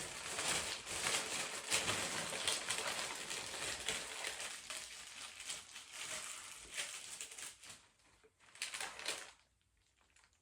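Paper packaging crinkling and rustling as an item is unwrapped by hand: a dense run of crackles that thins out after about seven seconds, then a last short burst before it stops.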